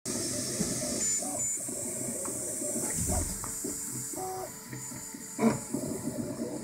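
Ultimaker 2 3D printer running a print: its stepper motors whine in short tones that keep changing pitch as the print head moves, over the steady hiss of its cooling fans. One sharp click near the end.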